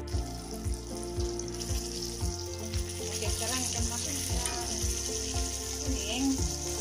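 Salted fish deep-frying in hot oil in a wok: a steady sizzle, with a metal spatula stirring in the pan. A regular low pulse, about three a second, runs underneath.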